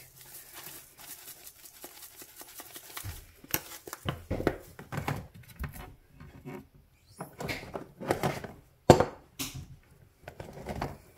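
Kitchen handling sounds as seasoning is added to mashed avocado: light clicks, taps and rustles of spice containers and a bowl, with a sharp knock about nine seconds in.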